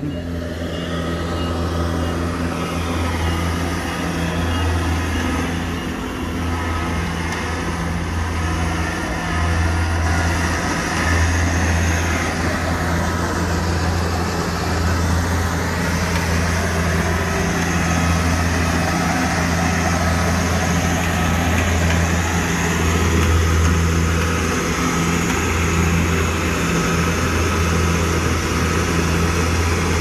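Kubota DC-70G combine harvester's diesel engine running steadily as the machine works across a muddy, flooded rice paddy, a continuous low hum with small swells in level.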